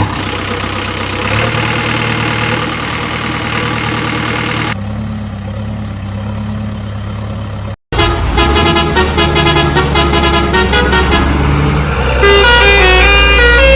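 A truck-type engine sound runs steadily for the first half. After a sudden brief cutoff, a run of horn-like notes steps up and down in pitch like a tune, growing louder near the end.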